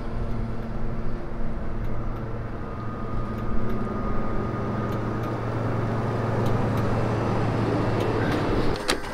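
Volvo FH hydrogen fuel-cell electric truck driving slowly, with a steady electric hum and tyre noise and no diesel engine sound. A single sharp click comes near the end.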